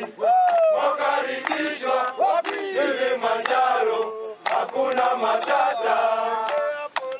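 A group of men's voices chanting a song together, with handclaps keeping time about twice a second.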